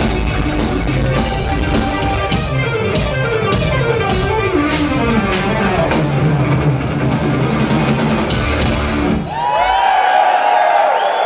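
Live rock band of electric guitar, bass, keyboards and drums playing a loud passage that stops about nine seconds in. The crowd then cheers.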